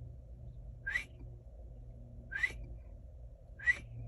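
A small bird calling: short chirps that rise in pitch, three of them about a second and a half apart.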